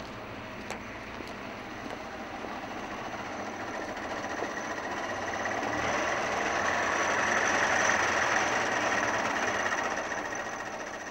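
A road vehicle passing along the street, its engine and tyre noise slowly swelling to a peak about eight seconds in, then fading away.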